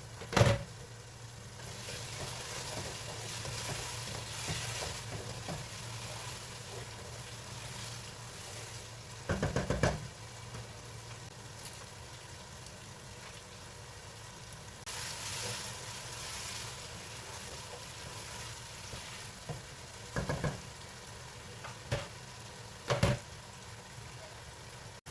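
Food frying and sizzling in a pan while it is stirred, with a few sharp knocks of a spoon against the pot: one near the start, a quick clatter about ten seconds in, and a few more near the end.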